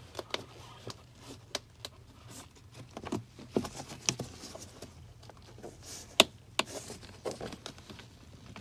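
Plastic interior trim panels in a car's footwell being pried and pulled by hand: irregular clicks, taps and rubbing of plastic, with one sharp click about six seconds in.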